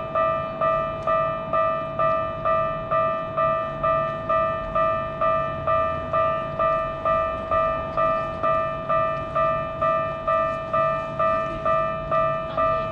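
Japanese level-crossing warning bell ringing in a steady two-tone ding at about two strikes a second, signalling that a train is approaching and the barriers are down.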